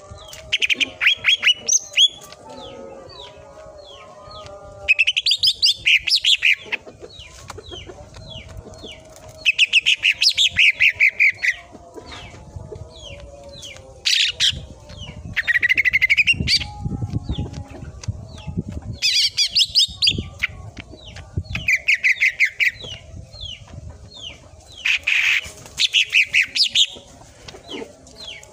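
A cucak ijo (greater green leafbird) singing. Loud bursts of rapid, sharp chirping notes come every few seconds, with softer scattered notes in between.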